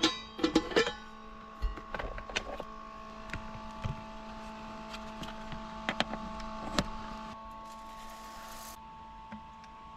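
Small clicks and knocks as a rice cooker's metal pot and its power plug are handled, then dry rice pours into the cooker's pot with a hiss for about a second and a half near the end. A steady electrical hum runs underneath.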